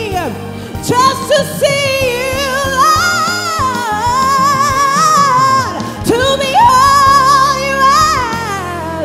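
A woman singing a gospel song into a handheld microphone over instrumental backing with low sustained chords, holding long notes with vibrato and sliding between pitches in a wordless run.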